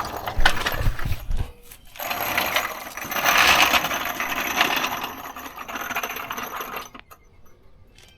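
Metal objects clinking, rattling and scraping as they are handled, for about seven seconds, then stopping.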